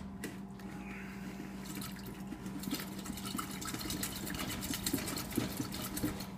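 Tap water running and splashing into a glass, getting fuller and busier about two seconds in, over a steady low hum.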